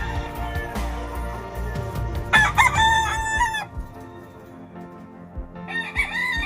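Gamefowl roosters crowing: one crow about two seconds in lasting about a second and a half, and another starting near the end.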